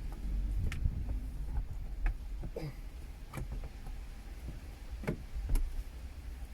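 Plastic car interior trim being worked loose by hand: scattered sharp clicks and knocks of panels and retaining clips, about half a dozen, over a low rumble.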